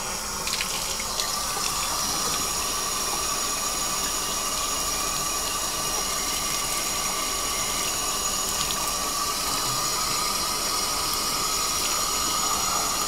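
Bathtub faucet running steadily, water pouring into the tub as a fish is rinsed under the stream.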